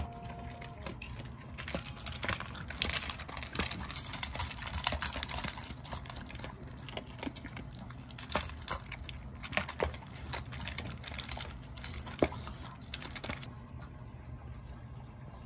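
Two Shiba Inu eating dry kibble from a stainless steel bowl and a plastic slow-feeder bowl: irregular clicks and clinks of kibble and mouths against the bowls, stopping about thirteen seconds in.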